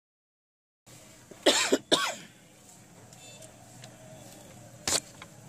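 After about a second of silence, a man coughs twice in quick succession. A single sharp click follows near the end.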